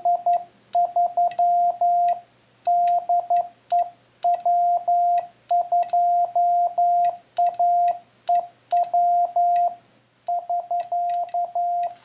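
Morse code (CW) sidetone from an electronic keyer: a single steady beep keyed on and off in dits and dahs, grouped into characters with short pauses between them, sent by hand on a Bencher dual-lever iambic paddle. The paddle's levers click sharply against their contacts with each element.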